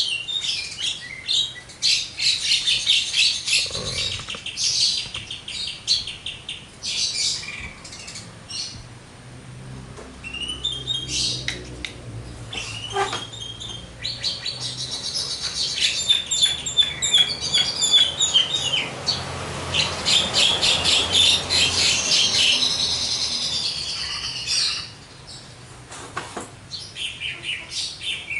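Javan myna singing nonstop: fast runs of chattering, rasping notes and whistles, with mimicked calls of other birds mixed in, broken by a couple of short lulls.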